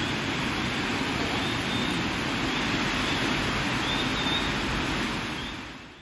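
Heavy rain pouring down on a station platform and its canopy roof, a steady dense hiss that fades out at the very end.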